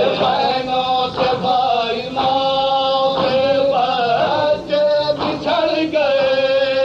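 Male voices chanting a noha, a Shia lamentation in Urdu, in long drawn-out sung phrases.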